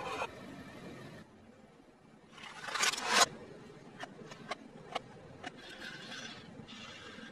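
Car tyre rolling onto stacked clear plastic cups, a rising crackle that stops abruptly about three seconds in. Then several sharp clicks as a wooden hammer knocks against a hollow plastic toy dog.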